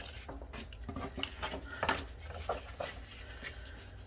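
Paper being handled: a printed paper sheet rustling and sliding as it is positioned on a manila file folder, with a scatter of light taps and clicks against the table.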